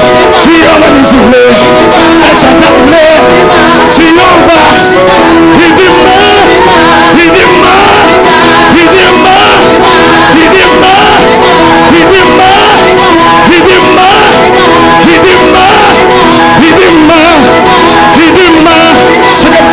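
Loud live gospel praise music: male singing over guitar and other instruments, playing without a break.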